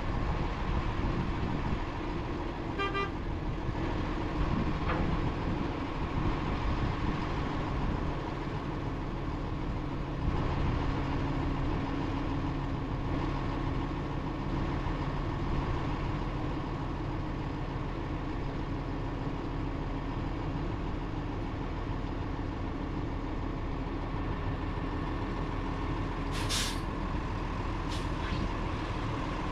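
Diesel dump truck running steadily while its hydraulic hoist slowly tips the loaded flatbed up to slide off a load of roof trusses. A brief beep comes about three seconds in, and a short hiss of air near the end.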